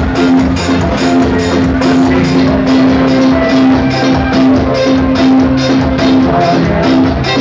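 Amplified live band music, loud, driven by a steady drum-kit beat with cymbal ticks two or three times a second and a long held note running underneath.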